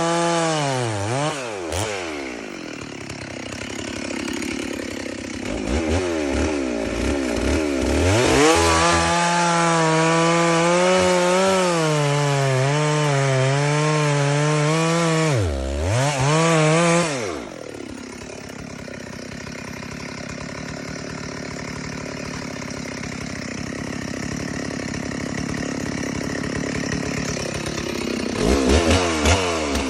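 Stihl 064 two-stroke chainsaw revving and cutting wood, its pitch dipping and climbing as the chain loads and unloads in the cut. A little after halfway it drops to a quieter, lower, steadier running for about ten seconds, then revs up again near the end.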